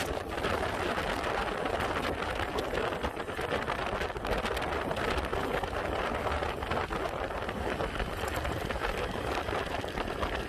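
Steady rush of wind buffeting a microphone that is moving along the road, mixed with road noise; no distinct engine or voice stands out.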